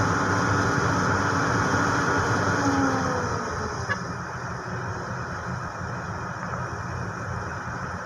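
Motor vehicle engine and road noise while driving. The engine note falls over the first three seconds, then it runs quieter and steady.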